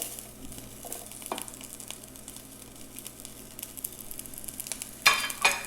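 Chopped white scallion parts sizzling and crackling in hot oil in a stainless steel pan, a steady hiss with fine pops. A short louder sound stands out about five seconds in.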